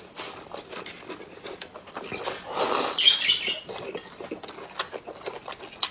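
Close-miked mouth sounds of chewing octopus tentacle: a steady run of wet smacks and clicks, with a louder squelching burst about two and a half seconds in.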